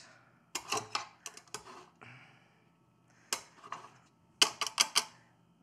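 Lemon scraped across a rasp zester resting on a steel mixing bowl: short scraping strokes that come as groups of sharp ticks, the loudest group near the end.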